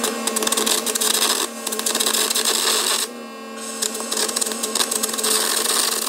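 Air carbon arc gouging on steel: the arc crackles and the compressed-air jet hisses in four spells of about a second and a half, broken by short pauses.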